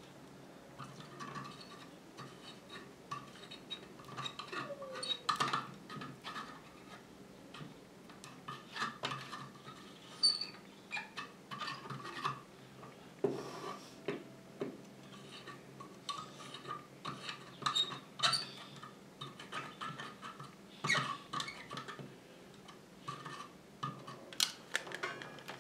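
A grommet being soldered onto a steel washer with a soldering gun: irregular small clicks and crackles as the solder and flux heat and the metal pick presses and scrapes on the washer.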